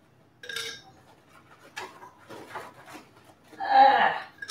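Ice cubes being gathered and dropped into a tall glass: a short rattle, then scattered clicks and clinks. A louder, brief pitched sound comes about four seconds in.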